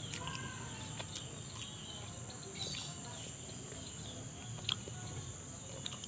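Outdoor garden ambience: a steady high-pitched drone of insects with scattered bird chirps, and a couple of sharp clicks about two-thirds of the way through.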